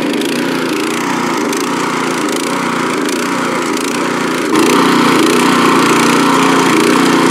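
Texas motor cultivator's 6.5 hp petrol engine running steadily as its tines mill through hard, grassy soil. It gets louder about four and a half seconds in.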